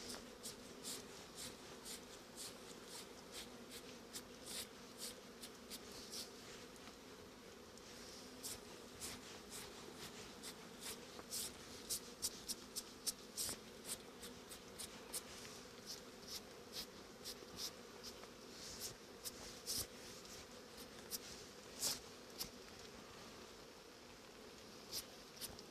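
Honeybees from an opened hive humming steadily, with many short, light ticks scattered through the hum.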